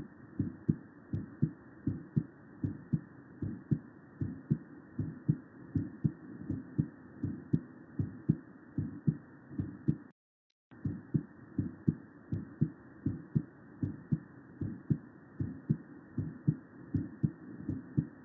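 Recorded human heart sounds: a regular heartbeat, each beat a low thud, repeating steadily, with a brief cut-out about ten seconds in.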